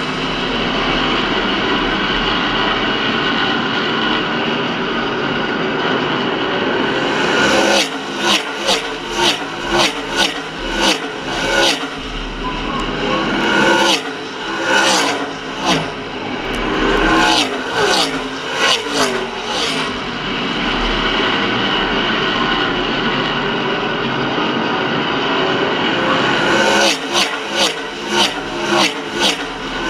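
NASCAR K&N Pro Series West stock cars' V8 engines at racing speed: a steady drone from the field lapping the oval, broken about 8 s in, again around 14 s and near the end by packs of cars passing close one after another, each a quick loud rush.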